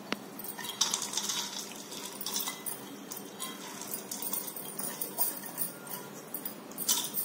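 Split lentils pattering and rustling as they are poured from a steel cup into a steel bowl of dal and stirred by hand, in several short rattly spells. There is a single sharp click just after the start.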